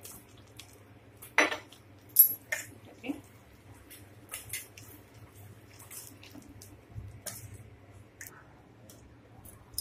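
A hand mixing flour, egg and water into a batter in a steel bowl: scattered clinks and taps against the metal bowl at irregular moments, the sharpest a little over a second and about two seconds in.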